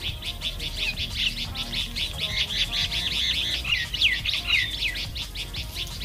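Songbirds chirping in a dense, rapid chorus, with a few quick down-slurred whistles in the middle.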